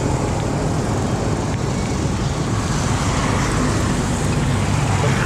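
Steady wind rush on the microphone and road noise from riding a motorbike along a highway, with the engine running low underneath.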